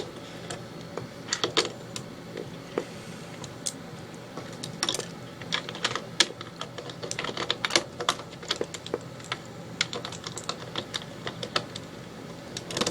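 Plastic Lego bricks clicking and clattering as they are rummaged through and handled, in irregular small clicks and short clusters.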